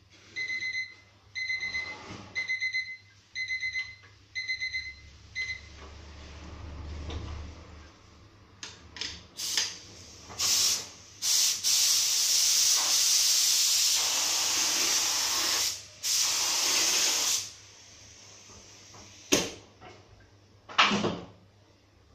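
A spray gun hisses: a few short bursts, then a long steady spray of about seven seconds, as activator is sprayed onto hydrographic dipping film floating on a water tank, liquefying the ink for the dip. Before it, electronic beeps sound in short groups about once a second for some five seconds, and two sharp knocks come near the end.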